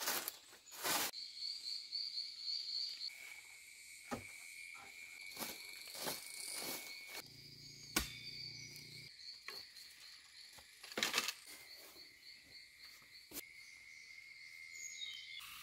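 Insects trilling steadily in high, thin tones, with scattered swishes, rustles and knocks from sweeping with a broom and handling bamboo and debris.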